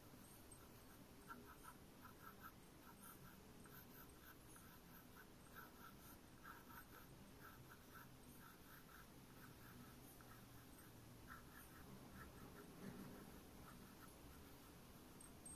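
Pencil hatching on paper: a faint run of quick, short scratching strokes, about two to three a second.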